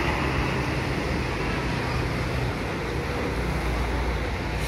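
Diesel engine of a large coach bus running as it pulls away across the terminal yard, a steady low drone over a wash of background noise.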